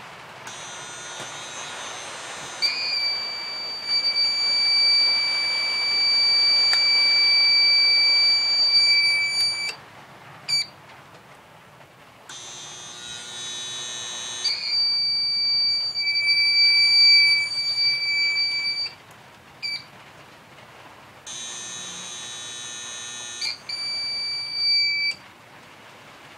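A malfunctioning UPS's alarm beeper sounding a steady high-pitched tone in three long stretches of several seconds each. Between the stretches there is a rougher buzzing. The UPS does not run properly on modified sine wave inverter power.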